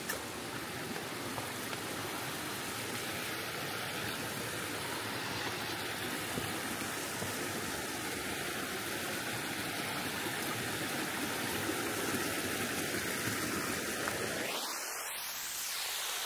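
Steady rush of a shallow river running over rocks, an even hiss of flowing water that briefly thins near the end.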